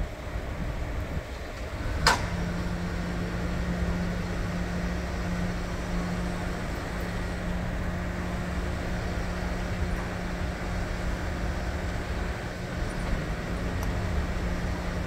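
Street traffic noise with engines running. About two seconds in there is one sharp clank, and right after it a steady low hum sets in.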